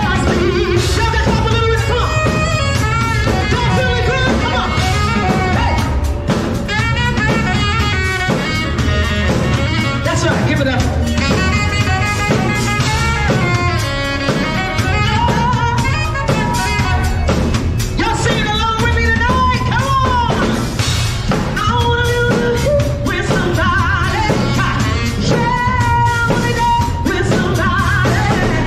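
Live band music with a drum kit keeping the beat, and a woman singing through a microphone and small amplifiers.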